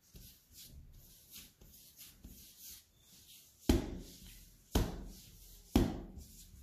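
Hands working a log of soft bread dough on a floured steel worktop: a soft rubbing as the palms slide over the dough, then three dull pats about a second apart, the loudest sounds, as the hands press the dough into shape.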